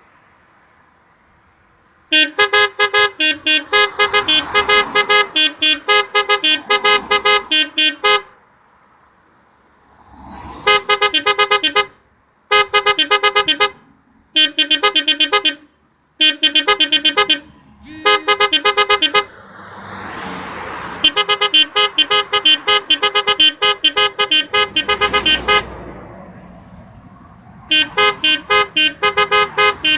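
An electric vehicle horn driven by a melody horn module, playing tunes as fast runs of short honks, with short pauses between phrases.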